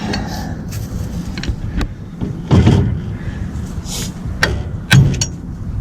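Metal knocks, clinks and scrapes of a pry bar working the return springs and shoes out of an old drum brake, a handful of sharp strikes at uneven intervals with the heaviest about halfway through.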